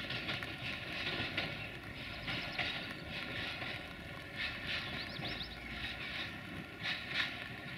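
Duewag class 628 diesel multiple unit rolling slowly over points and rail joints, its wheels clacking irregularly, with a steady faint hum underneath.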